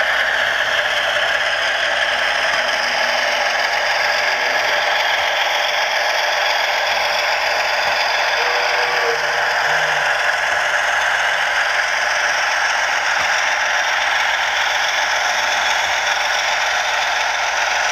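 HO scale model diesel locomotives running along layout track: a steady rolling clatter and rattle of small metal wheels on rail, with motor whir.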